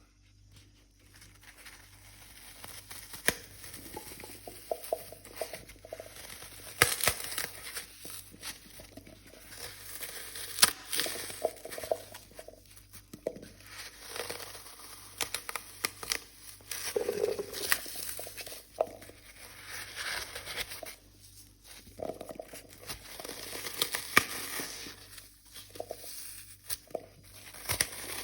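Glitter-coated dry floral foam being crushed by hand: irregular crunching and crackling with frequent sharp cracks, in bursts that grow louder and fade.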